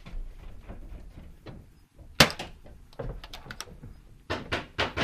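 Paintball fire in a close bunker: a single loud crack about two seconds in, then a run of quicker sharp knocks and clicks building toward the end.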